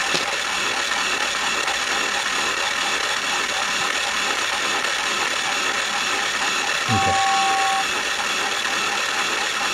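Battery-operated toy train's electric motor and plastic gearbox running steadily, with a continuous whirring gear rattle. A brief higher tone sounds about seven seconds in.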